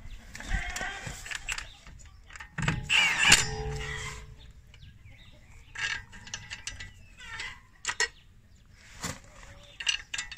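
Steel wheel bolts being fitted into a wheel hub: irregular metal clicks, scrapes and clinks as the bolts and a socket are handled and threaded in, with one louder clatter and brief ringing about three seconds in.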